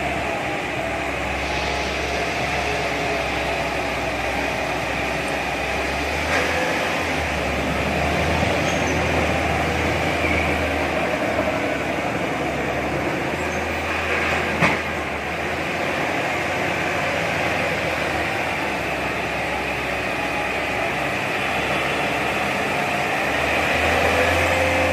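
Bulldozer's diesel engine running steadily under load while it pushes sand, with a deep rumble and a single sharp knock about fifteen seconds in.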